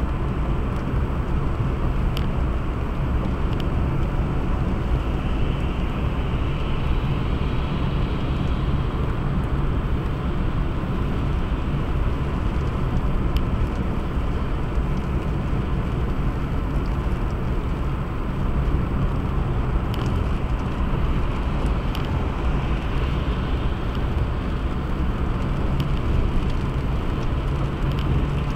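Steady road noise of a car driving at speed: engine and tyre rumble, with a higher hiss swelling twice.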